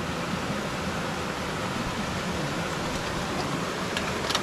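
A steady, even rushing noise, with a brief click near the end.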